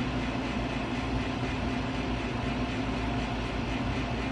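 Steady low mechanical hum with an even hiss, unchanging.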